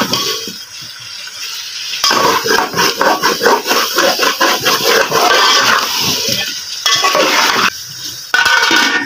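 Steel spoon stirring and scraping chicken pieces in masala around an aluminium pot, many quick scrapes in a row. Near the end, a metal lid clanks onto the pot.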